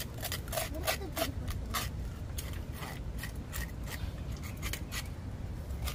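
Knife scraping scales off a fish, repeated short rasping strokes at roughly two a second.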